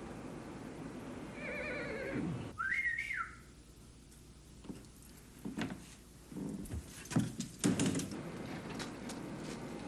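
Two animal calls with a wavering pitch in the first few seconds, then scattered knocks and clatter.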